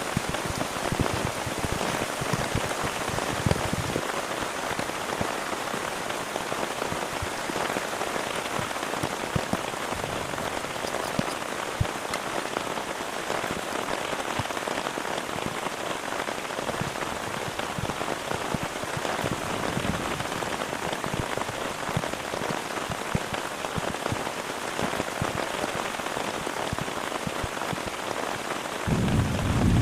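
Heavy rain falling steadily, with many separate drop hits on a nearby surface. A brief low rumble comes in near the end.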